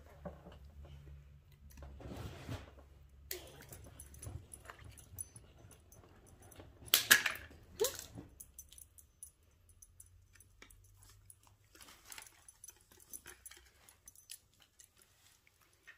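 Dachshund rummaging at a wrapped gift: scattered rustling and crinkling of paper, with the loudest, sharpest crinkle about seven seconds in.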